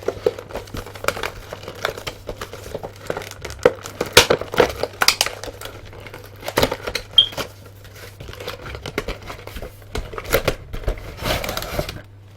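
Plastic action-figure packaging crinkling and crackling as it is handled and opened, with irregular sharp crackles throughout.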